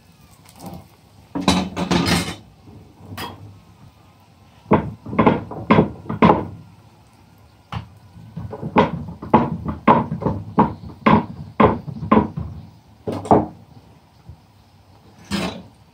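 Spatula knocking and scraping against a tawa as a frying aloo paratha is pressed and moved about in the pan. The sound comes as short bursts in clusters, quickening to about two a second in the second half.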